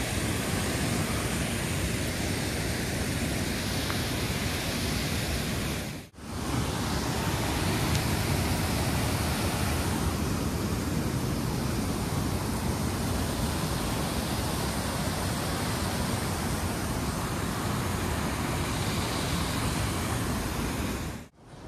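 Small cascade waterfall with a light flow, water rushing as a steady, even hiss, broken by two sudden short gaps about six seconds in and near the end.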